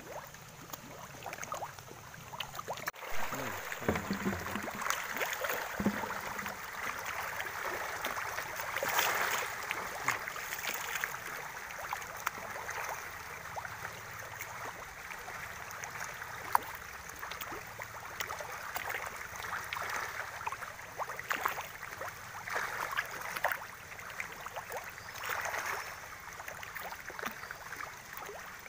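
Pond water splashing and gurgling at the surface, a steady wash of many small splashes and sharp ticks.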